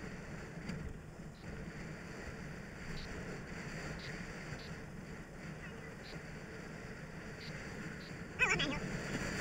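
Wind and tyre noise of a mountain bike rolling along pavement. Near the end, a short, loud, voice-like cry that falls steeply in pitch.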